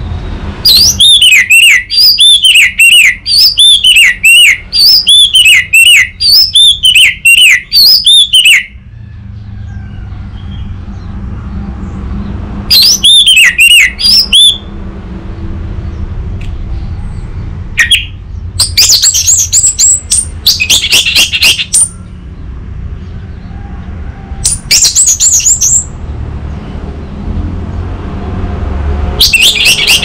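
Orange-headed thrush singing loud phrases of quick, repeated down-slurred whistles: a long run of about eight seconds, then several shorter bursts with pauses between them.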